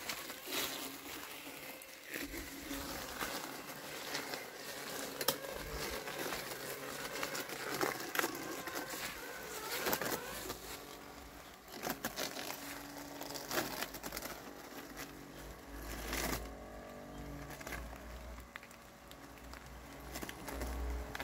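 Landxcape 790 robotic lawn mower working through wet fallen leaves and weeds: crinkling and crackling of leaves with scattered clicks. About three quarters through there is a brief motor whine that bends in pitch.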